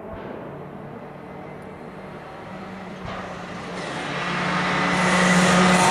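Rally car approaching at speed on a stage. Its engine is faint at first, then grows steadily louder from about three seconds in, holding a steady pitch as it closes in.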